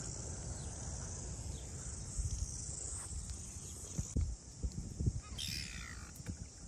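Steady high-pitched chorus of insects, with low bumps of wind or handling on the microphone and a short bird call about five seconds in.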